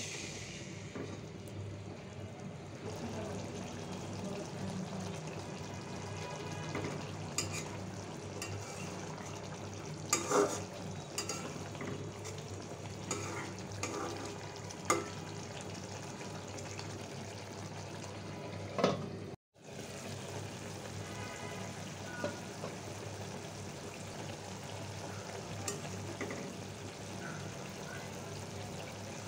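Green banana kofta curry simmering and sizzling in a metal pan as a spatula stirs it slowly, with a few sharp clicks of the spatula against the pan.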